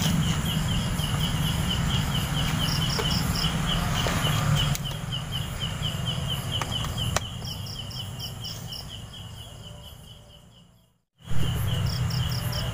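Crickets chirping: a steady pulsing chirp about four times a second, with short groups of higher-pitched chirps now and then, over a low steady hum. It all fades out near the end, cuts to silence for a moment, and comes back.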